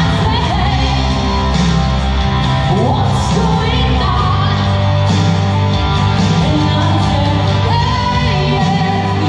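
A woman singing a song into a microphone, amplified through loudspeakers, with instrumental accompaniment.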